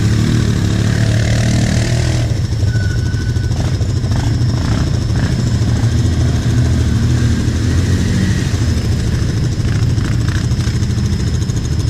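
Quad bike (ATV) engines running, with a steady idle close by, as other quads drive through a flooded mud channel.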